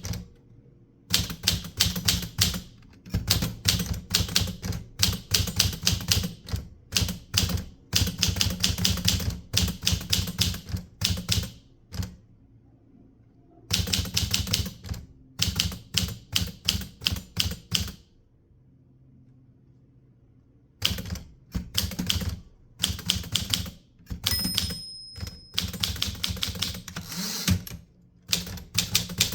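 Typewriter keys striking in quick runs of typing, broken by short pauses, with a brief bell ring about three-quarters of the way through.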